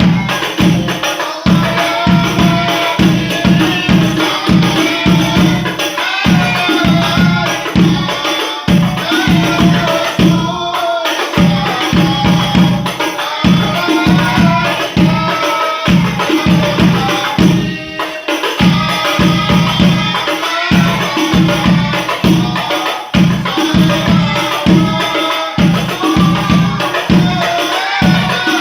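Sholawat devotional singing accompanied by rebana frame drums: voices carry a wavering melody over a steady, driving rhythm of drum strokes with tambourine-like jingles.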